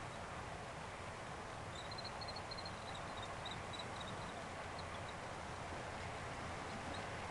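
Model grain train's hopper wagons rolling along the track in a steady, even rumble, with a run of faint high-pitched chirps from about two seconds in.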